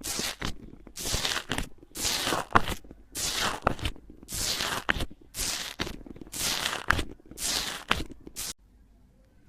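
Slime being squeezed and pressed by hand in a steady rhythm, about once a second, each press giving a short crackling, squelching burst with sharp pops. It stops about a second before the end.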